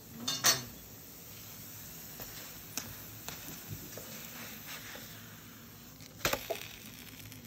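A few sharp knocks of kitchen utensils over a faint steady hiss. One comes about half a second in and a louder cluster of two or three about six seconds in.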